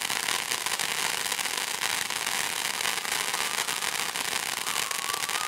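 Ground fountain firework spraying sparks, a steady hissing crackle made of many fine rapid pops.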